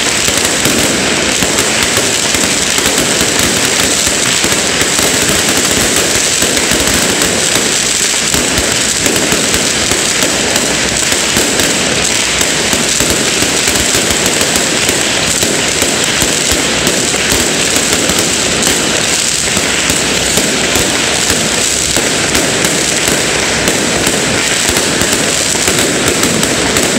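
Fireworks going off in a dense, unbroken crackle of rapid bangs that stays loud and steady throughout.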